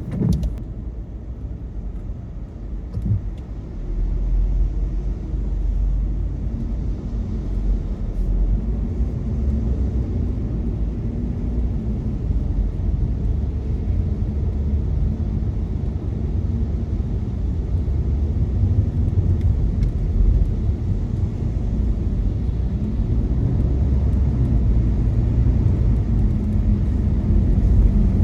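Steady low rumble of a car driving on a wet road, heard from inside the cabin: engine and tyre noise, growing a little louder near the end.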